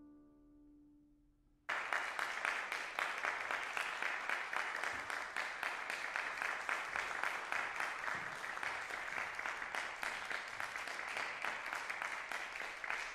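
Final chord of a violin and cello dying away, then audience applause breaking out suddenly about a second and a half in and continuing as steady clapping.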